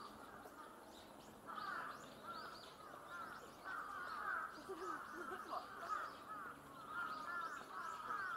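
Crows cawing and other birds calling over and over in quick, overlapping calls, quieter for about the first second and a half.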